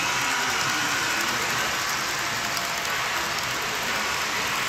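Model train running on the layout: a steady whirring rush of wheels on rail and motor, even in level, with a few faint tones riding on it.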